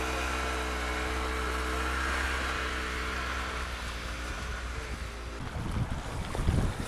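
An engine idling steadily with an even hum that fades out about five seconds in. Then gusts of wind buffet the microphone over the rush of a flowing creek.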